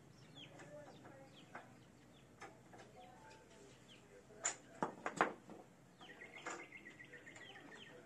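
Metal hand tools clinking and knocking against the motorcycle's engine parts, with a few sharp clanks about four and a half to five and a half seconds in. Faint bird chirps in the background.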